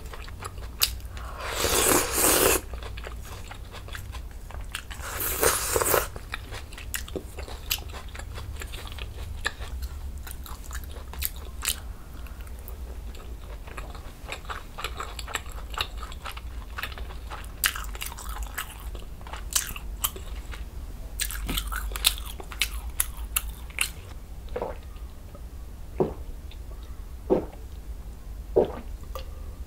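Close-miked eating of budae jjigae (Korean army stew): two louder noisy bursts in the first six seconds as food is spooned up, then chewing with many small wet mouth clicks. In the last few seconds, short gulps come about every second and a half as beer is swallowed.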